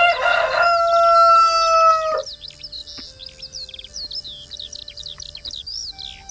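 A rooster crows once: a single loud call lasting about two seconds that cuts off. Then small birds chirp rapidly in quick high notes.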